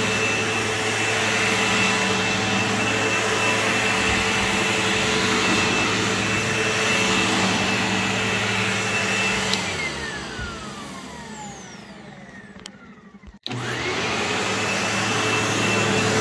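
Sebo X4 upright vacuum cleaner running on carpet with a steady motor whine. About ten seconds in its power is cut and the whine falls away as the motor spins down over some four seconds. Just as it goes quiet it comes back on and is straight back up to speed.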